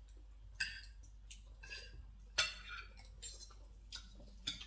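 Spoons and forks clinking against dinner plates while eating, a few short separate clinks with the loudest about two and a half seconds in.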